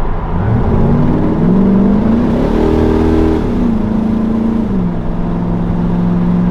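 Cammed LS V8 in a 1999 GMC single-cab pickup, heard from inside the cab, revving up under acceleration. The pitch climbs for about three seconds, drops back twice, and settles to a steady run near the end.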